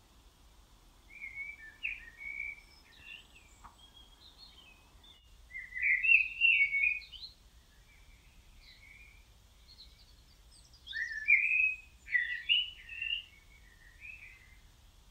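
A songbird singing in short phrases that rise and fall in pitch, loudest around one to three seconds in, around six seconds in and around eleven to thirteen seconds in, with quieter chirps between.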